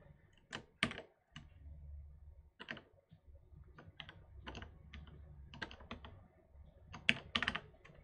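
Computer keyboard being typed on: a dozen or so separate keystrokes at an irregular pace, bunching together near the end, as a short terminal command is entered.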